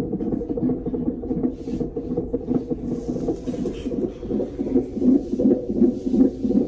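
Fetal heart monitor's Doppler speaker playing an unborn baby's heartbeat as a fast, even, pulsing whoosh at about 160 beats a minute, close to three beats a second.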